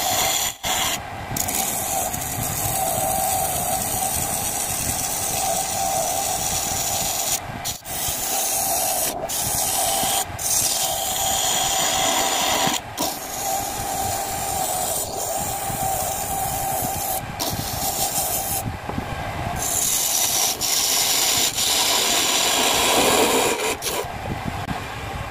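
Homemade wood lathe spinning a wooden bowl blank while a hand-held chisel cuts into it: a steady scraping, rasping sound of the tool on the turning wood over a steady hum from the lathe. The cutting lets up briefly a few times as the tool comes off the wood.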